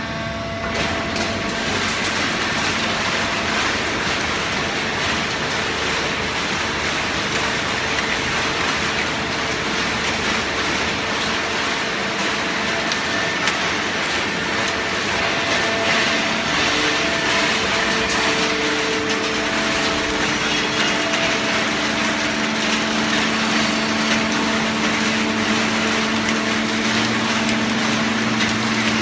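Hydraulic waste-paper baling press running: a steady, loud mechanical din with a low hum that grows stronger about two-thirds of the way through.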